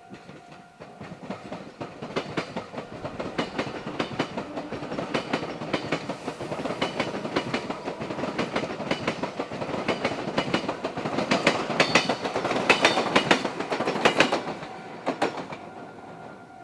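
Meitetsu electric train passing, its wheels clattering rhythmically over rail joints. The clatter grows louder, peaks about three-quarters of the way through, then fades as the train moves away.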